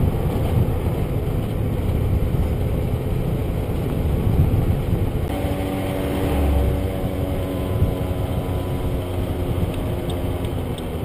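Wind buffeting the microphone over the running engine of a moving scooter. About five seconds in, a steady engine note with several tones comes through the rumble.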